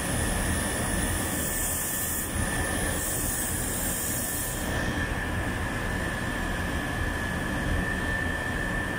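Split-type air conditioner outdoor unit running during refrigerant charging, its compressor and fan giving a steady drone with a thin constant whine. A brief high hiss joins in about two seconds in and stops near the middle.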